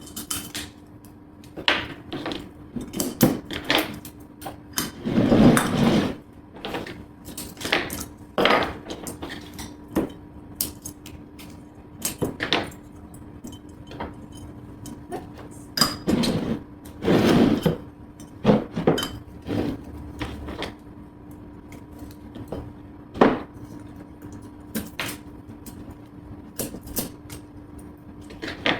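Ceramic table torches being handled on a hard surface: irregular knocks and clinks, with a few longer rasping sounds as their labels are peeled off. A faint steady hum runs underneath.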